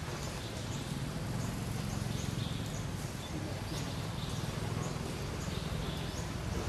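Outdoor ambience: a steady low rumble under faint, short, high chirps that come every second or so.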